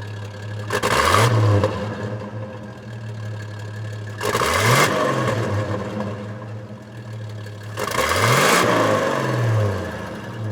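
Vehicle engines running with a steady low drone, rising and falling in pitch as they rev up and drop off three times.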